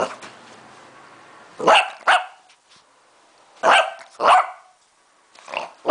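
Lhasa Apso barking at the camera: about seven short barks, mostly in quick pairs roughly two seconds apart.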